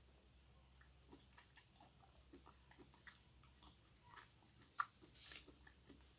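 Quiet chewing of raw pork liver with the mouth closed: a scatter of small soft clicks, one sharper click a little before five seconds in and a brief louder noisy patch just after.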